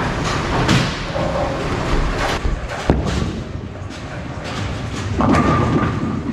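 Motiv Supra Rally bowling ball thuds onto the wooden lane and rolls, then crashes into the pins about five seconds in, over the steady clatter of a bowling alley.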